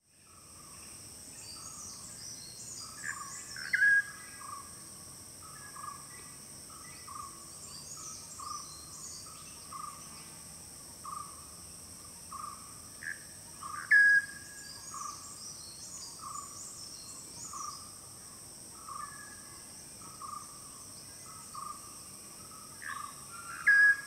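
Natural forest ambience: insects buzzing with a steady high drone, a bird repeating a short call about once a second, and three louder calls that drop quickly in pitch, at about 4 seconds, 14 seconds and near the end.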